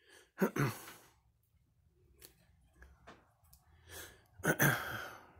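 A man sighing twice, short breathy exhalations about half a second in and again, louder, about four and a half seconds in, with faint small clicks in between.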